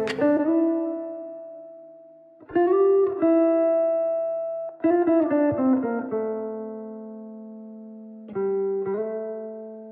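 Slow solo guitar playing: clusters of plucked notes and chords struck every couple of seconds, each left to ring out and fade slowly.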